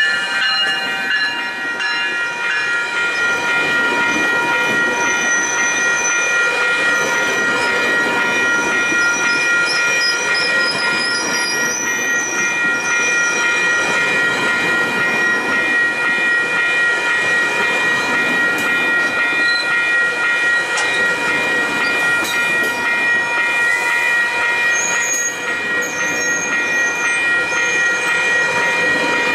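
A GO Transit bilevel commuter train rolling past close by, its wheels making a steady rush on the rails. Several steady high-pitched ringing tones sound over it.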